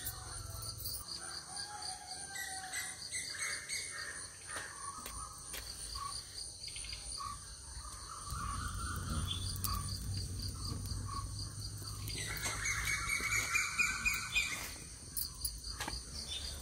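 Birds chirping over a steady, evenly pulsing chorus of insects.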